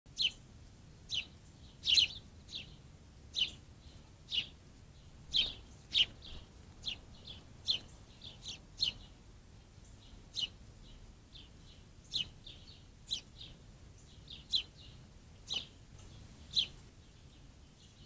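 A small songbird giving short, sharp single chirps, roughly one a second, a few of them fainter and closer together.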